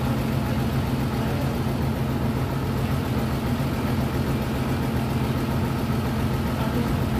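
Diesel engine of a Tadano TS-61LN truck crane idling steadily, with no revving.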